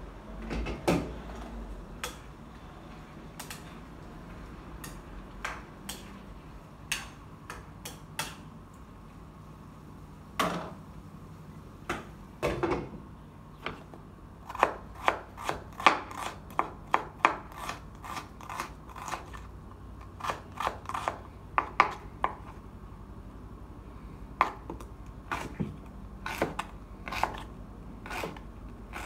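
Kitchen knife chopping onion on a wooden cutting board. The knife knocks against the board only now and then at first. About halfway through it settles into a run of quicker, closely spaced chops, then slows again near the end.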